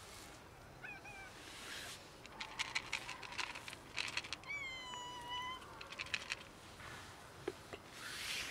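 Cats meowing: a short meow about a second in and a longer, drawn-out meow midway, with bursts of clicking and rustling between them.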